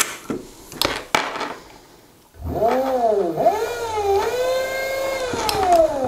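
A few switch clicks, then about two and a half seconds in the brushed DC electric motor of an electric quad/dirt bike spins up on the twist throttle. Its whine rises, dips twice, holds steady, and then falls away near the end as the throttle eases off.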